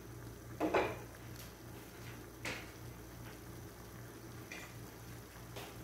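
Squid simmering in its own released liquid in an uncovered pan, a faint sizzling bubble with a few brief louder pops, over a steady low hum.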